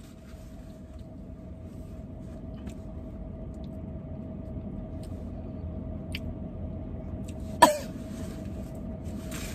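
Steady low hum inside a car cabin, then one short, sharp cough about three-quarters of the way through, a put-on cough made for a prank.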